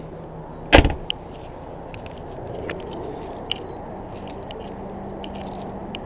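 A car door of a 1986 Ford Thunderbird is slammed shut: one loud thud less than a second in, followed a moment later by a small click of the latch.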